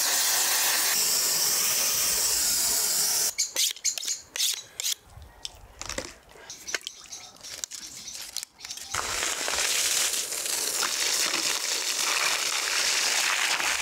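Gas blowtorch flame hissing steadily as it singes beef hooves on a grill. Then comes a run of sharp, irregular knocks and clicks, and from about two-thirds of the way in, a garden hose spraying water in a steady hiss onto a wooden table.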